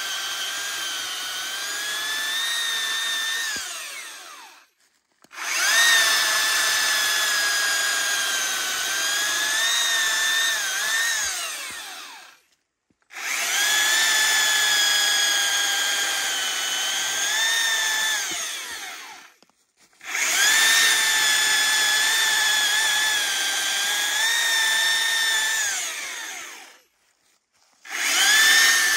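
Stihl MSA 300 battery chainsaw's electric motor whining as the chain cuts through dry wood, run at its top power setting. It goes in stretches of about six to seven seconds, cutting out and starting again four times, with the pitch wavering a little under load.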